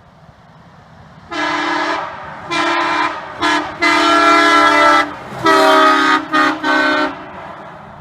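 Three-chime locomotive air horn mounted on a truck, which the owner takes for a Nathan P3 or a Leslie RS3L, sounded as a chord of several tones in about seven blasts of differing length: short toots and longer blasts of about a second. Around the blasts the truck's sound swells and then fades as it drives past.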